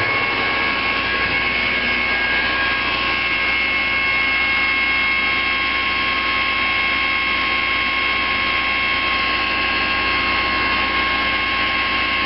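Demag H285S hydraulic front shovel running steadily, its diesel engine and drive giving a loud, even noise with a steady high whine over it.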